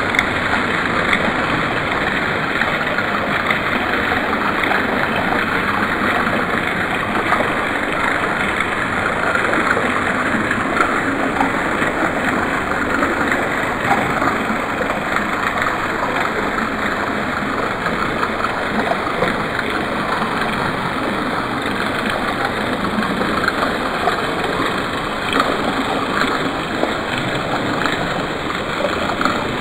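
Thin fountain jets of water falling and splashing steadily into a stone basin pool, a continuous even splashing.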